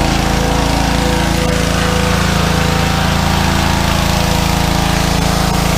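Small petrol pressure-washer engine running steadily after its carburettor has been cleaned, now running properly instead of dying after starting.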